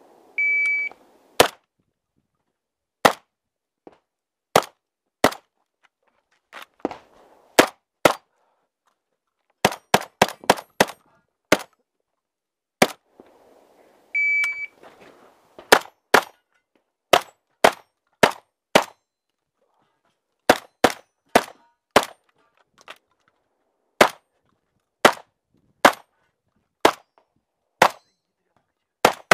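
A shot timer's start beep, then a magazine-fed semi-automatic shotgun fired in a fast string of shots at uneven intervals, sometimes several within a second. A second identical beep about halfway is followed by another string of shots.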